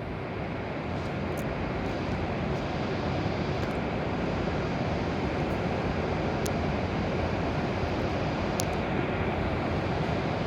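W7-series Shinkansen train running into the platform: a steady rushing noise that builds over the first second or two and then holds, with a few faint, brief high-pitched squeaks.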